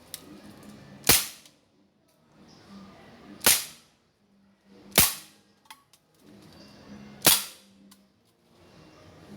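Beretta PX4 Storm CO2 air pistol firing four single shots, about a second and a half to two and a half seconds apart, each a short crack.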